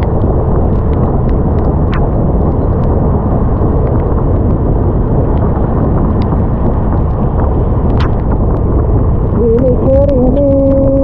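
Steady, loud wind buffeting on a bare action camera's microphone while riding a scooter at speed, with scattered small ticks through it. A brief pitched, wavering tone comes in near the end.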